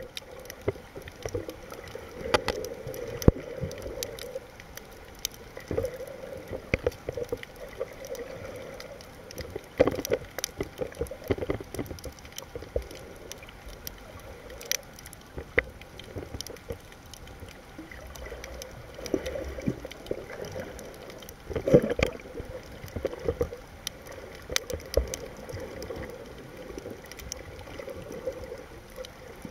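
Underwater sound picked up by a submerged camera: a murky gurgling wash of moving water with many scattered sharp clicks and knocks. The loudest knocks come twice, near the middle and about three quarters of the way through.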